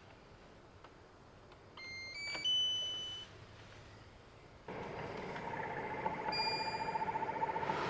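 Electronic beeps, a short stepped chime of three tones about two seconds in, then a fan suddenly starting up nearly five seconds in with a steady rush of air and a wavering hum. This is the EcoFlow Wave 3 portable air conditioner being switched on.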